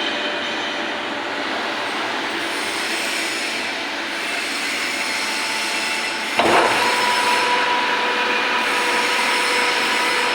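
Lathe running with a steady mechanical noise. About six seconds in, a sudden louder burst of sound comes in, followed by a steady whine that holds to the end.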